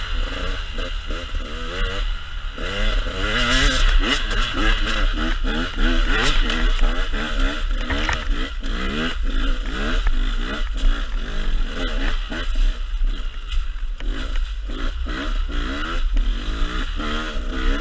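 Enduro dirt bike engine revving up and down over and over as the throttle is opened and closed on a rough trail, heard from the rider's own bike, with a steady low wind rumble on the microphone.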